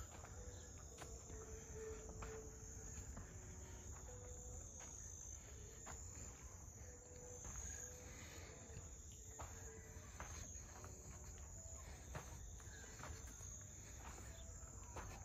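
Faint, steady high-pitched chorus of crickets, with scattered soft clicks.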